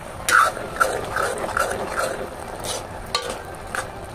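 A steel ladle stirring chickpea curry in a kadhai (wok), scraping the pan in short strokes about twice a second for the first two seconds, then a few sharper knocks against the pan.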